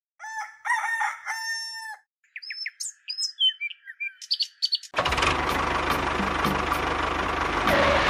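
A rooster crows, then small birds chirp in short, quick calls. About five seconds in, a loud steady noise with a low hum starts and keeps going.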